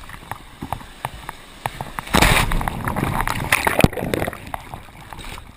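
Ocean surf: water sloshing with small splashes, then a wave breaking about two seconds in, a loud rushing noise that lasts about two seconds and dies away.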